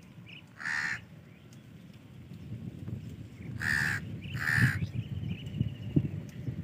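Three harsh, caw-like bird calls: one about half a second in and two close together near four seconds. A low rumble grows through the second half.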